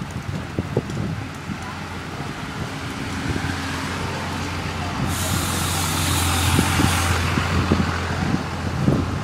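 A truck engine running with a steady low hum, and a hiss of air that starts abruptly about five seconds in and cuts off two seconds later.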